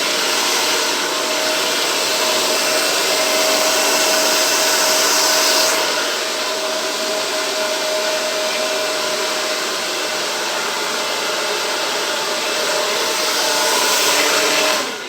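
Hair dryer blowing steadily: a rush of air over a steady motor whine. The tone of the air shifts slightly about six seconds in, and the dryer cuts off abruptly at the end.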